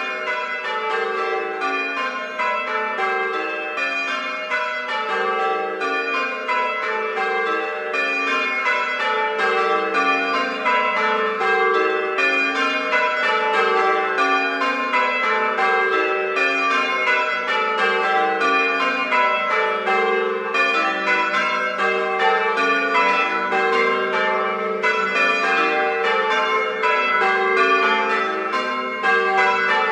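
A peal of church bells ringing changes, with runs of notes stepping down in pitch over and over.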